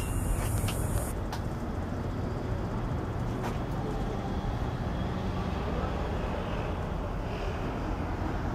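Freight train cars rolling slowly past, a steady low rumble with a few scattered clicks.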